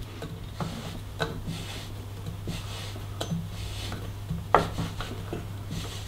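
Threaded bottom-bracket bearing press turned by hand, pushing dry, ungreased BB86 press-fit bearings into the frame's bottom-bracket shell: a rubbing, scraping creak with a few sharp metallic ticks at uneven times, the loudest about four and a half seconds in.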